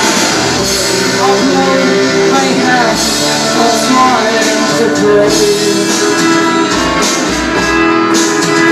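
Rock song in an instrumental passage led by guitar, over a pulsing bass line.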